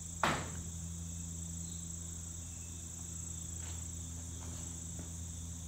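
Quiet background: a steady low hum and a steady high-pitched tone, with a brief sharp rustle or click about a quarter second in and a couple of faint ticks later.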